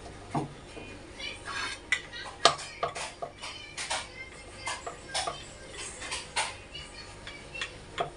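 Rolling pin working roti dough on a round rolling board, giving an irregular string of clacks and knocks as the pin and board bump against each other and the counter; the loudest knock comes about two and a half seconds in.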